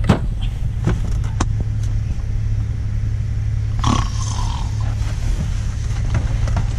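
Van engine running, a steady low hum heard from inside the cabin, with a few sharp clicks in the first second and a half and a short louder noise about four seconds in.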